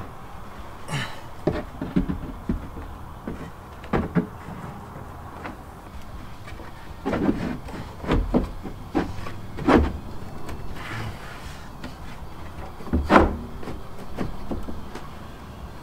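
Goose Gear storage platform panel being lowered and fitted into a Jeep Wrangler's cargo floor: a series of knocks, scrapes and clunks as it is set down and shifted into place, the loudest clunk near the end.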